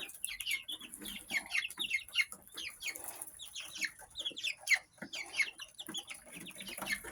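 A flock of baby chicks peeping busily: many short, high chirps, each falling in pitch, overlapping one another without pause.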